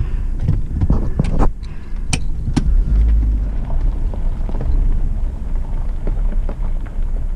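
Vehicle driving, a steady low rumble of engine and road with a few sharp knocks or rattles in the first few seconds.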